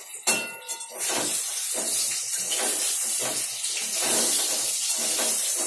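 Eggplant slices frying in hot oil in a pan: a loud, steady sizzle that swells up about a second in, after a sharp metallic clink of a utensil against the pan.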